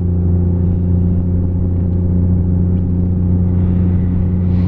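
Lifted Jeep's engine and drivetrain droning steadily at a constant cruise, heard from inside the cab.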